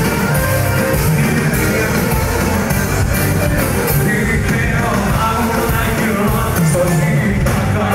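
Loud live pop music with a singer's voice over a band, played through a club sound system and heard from among the crowd.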